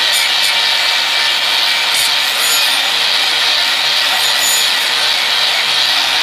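Handheld electric angle grinder with an abrasive disc grinding the edge of an iron-plate chopping-knife blade to sharpen it: a loud, steady grinding hiss.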